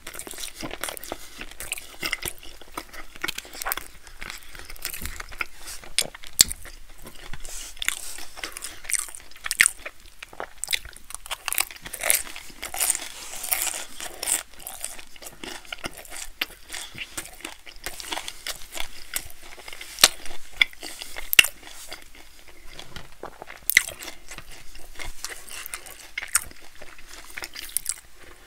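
Close-miked chewing of a mouthful of cheesy bread: irregular crunching and crackling with wet mouth sounds.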